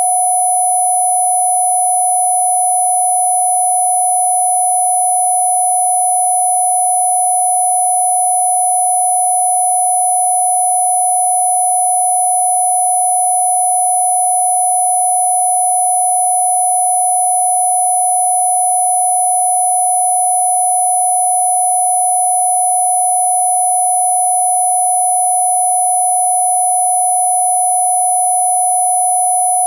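Steady, unchanging electronic sine tone of the kind played as a Rife 'healing frequency' for cough relief, with a very high thin tone and fainter steady overtones above it.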